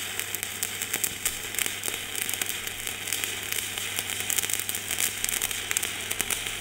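Stick (shielded metal arc) welding with a rutile-cellulosic E6013 electrode run vertical-down: the arc sizzles steadily with a dense crackle of spatter pops. The coating makes it burn a bit harsh and spattery while the weld pool stays under control.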